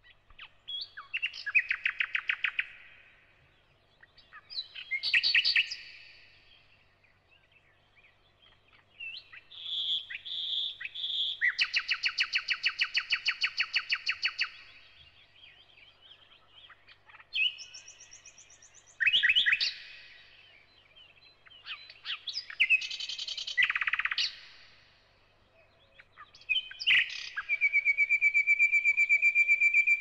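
Thrush nightingale singing: a run of separate phrases with short pauses between them. The phrases alternate fast rattling click trains with clear repeated whistles, and a long fast rattle begins near the end.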